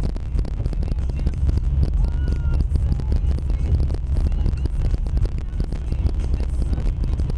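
Steady low rumble of a van's engine and tyres heard from inside the cab while driving on snowy roads.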